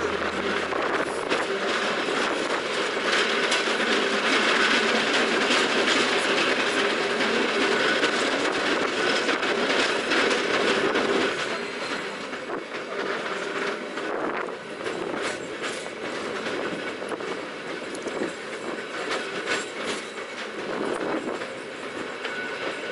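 San Francisco cable car running along its tracks: a steady rattling clatter of steel wheels on the rails, with many small clacks. It is louder for about the first half, then eases off somewhat.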